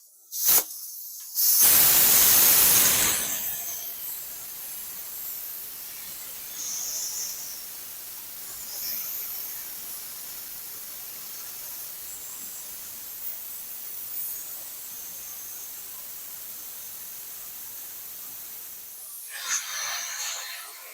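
Compressed air released from an air compressor's tank to empty it and purge moisture. A click, then a loud blast of air for about two seconds, settling into a long steady hiss with a short rougher spurt near the end.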